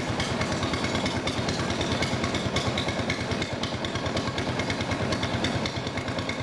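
Motor of a narrow wooden lake boat running at a steady speed under way, a rapid even pulsing with water hiss along the hull.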